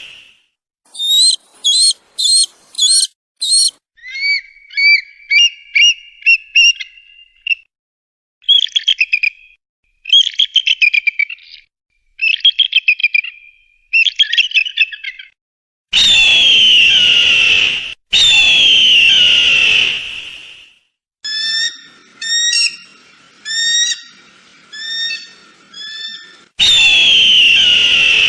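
Eagle calls played one clip after another: quick bursts of high, repeated piping notes, then long harsh screams, each falling slightly in pitch over about two seconds, with a run of evenly spaced repeated call notes between the screams.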